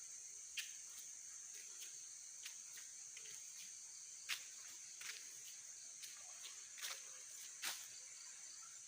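A steady, faint, high-pitched chorus of crickets. Scattered short clicks and ticks sound over it, the loudest about four and a half and seven and a half seconds in.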